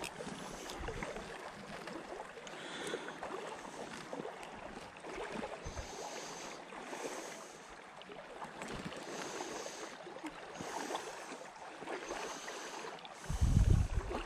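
Shallow creek water rippling and lapping. A brief low rumble comes near the end.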